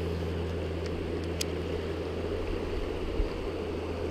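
Steady rushing of a fast-flowing river with a constant low hum beneath it, and a single sharp click about a second and a half in.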